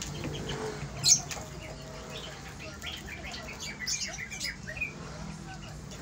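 A crow and a young chicken squabbling over a food bowl: one sharp loud squawk about a second in, then a quick run of short squawks and chirps.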